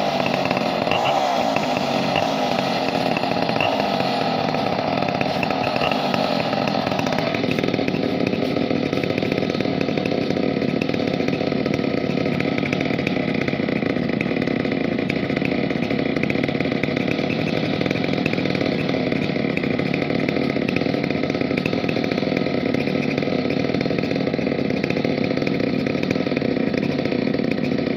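Two-stroke chainsaw running continuously at high speed, its sound changing about seven seconds in and then holding steady.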